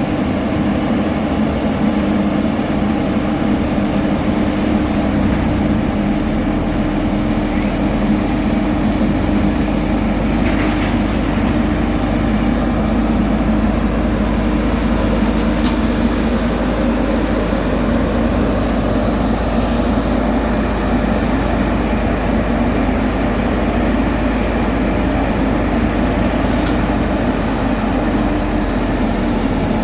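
Heavy diesel road-construction machinery running steadily: a constant engine drone.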